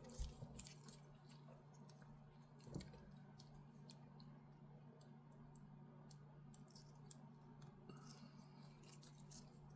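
Faint scattered clicks and taps of hands working on a small FPV drone's wiring and connectors, with two soft knocks, one just after the start and one about three seconds in, over a steady low hum.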